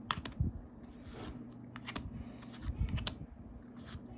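A stack of Topps baseball cards being flipped through one at a time: card stock sliding over the stack with soft rustles and a sharp click now and then as each card snaps past.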